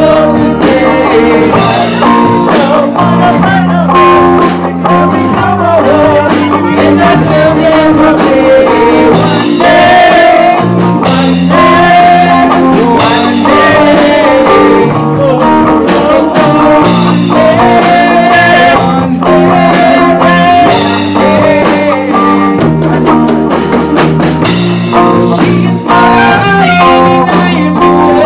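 A live band playing a song, with a man singing over electric bass guitar, drum kit and trumpet.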